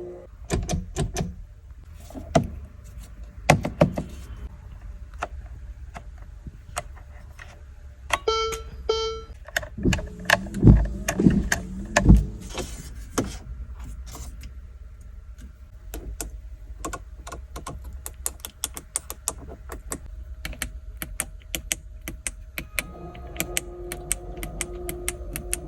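Ferrari F8 Tributo cabin controls and doors being worked: many sharp clicks and knocks of switches, buttons and latches, with a short two-tone electronic chime about eight seconds in. No engine is running.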